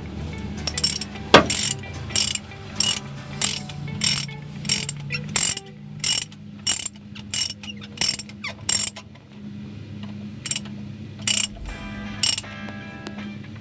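Ratchet wrench clicking in short strokes, about two a second for most of the stretch, then a pause and a few slower strokes near the end, over a steady low hum.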